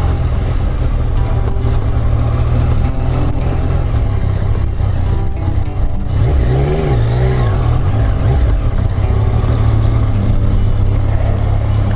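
Motorcycle engine running steadily at low revs, with a brief rise and fall in pitch about six to seven seconds in.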